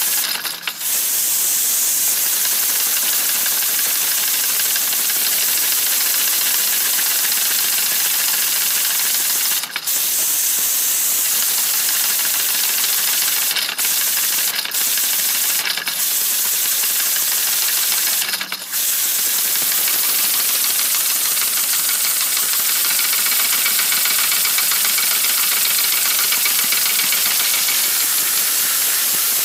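Compressed air hissing steadily from a blow gun into a small homemade copper-pipe engine that is run on air in place of steam. The air cuts off for a moment about half a second in, again near ten seconds, and four times between about fourteen and nineteen seconds.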